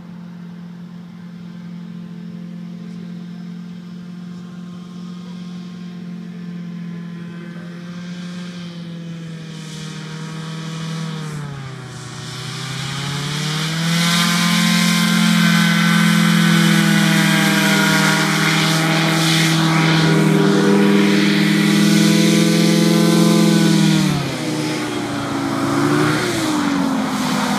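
Small hovercraft's engine and ducted fan running, growing louder as the craft approaches. The revs dip and pick back up about halfway through, hold high, then drop back toward idle a few seconds before the end, with one short blip of throttle.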